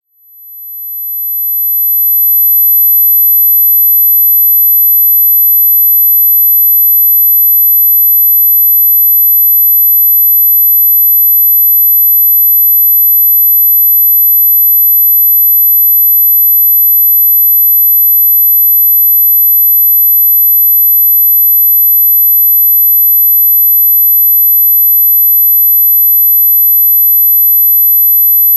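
A steady, high-pitched 12 kHz pure sine tone played as a tinnitus-masking tone. It fades in over the first couple of seconds, then holds at one unchanging pitch and level.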